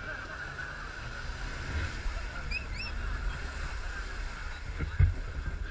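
Suzuki Samurai 4x4's engine running under load as it ploughs through a deep mud pool, with muddy water sloshing and splashing around the wheels. A sharp thud about five seconds in.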